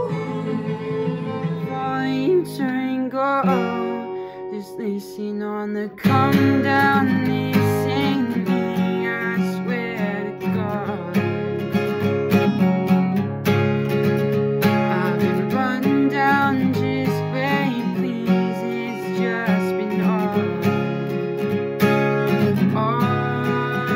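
Music: one performance ends, and after an abrupt cut about six seconds in, an acoustic guitar with a capo is strummed, with a voice singing over it.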